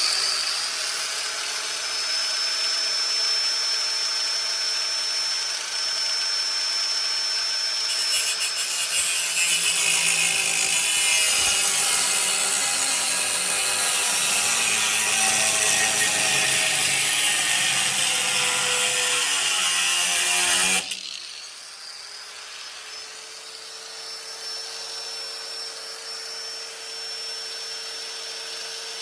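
A power tool cutting a piece out of a steel sheet, loud and steady. About three-quarters of the way through it drops to a much quieter steady running with a single held tone.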